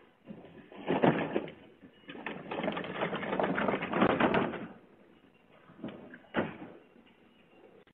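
A plastic wheelie bin being handled and rolled on its wheels: a loud clatter about a second in, then a rattling roll lasting about two and a half seconds, then two knocks as it is set down.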